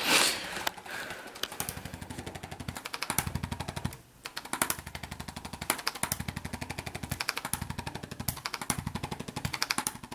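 Electric percussion massager running in rapid pulses, many strokes a second, in stretches of a second or two that stop and restart several times, with a short break about four seconds in, as it is worked over the body. A brief burst of noise comes at the very start.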